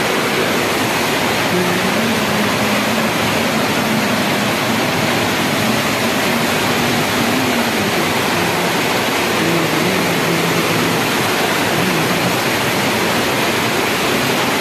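Water rushing steadily through the channels of a water-treatment plant's filter beds, an even, unbroken wash of flowing water.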